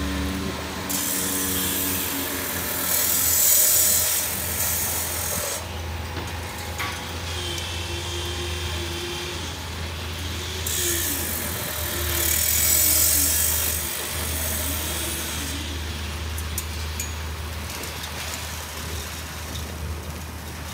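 Concrete boom pump truck running: a steady low engine drone, with two long surges of loud hissing, one about a second in and one about halfway through.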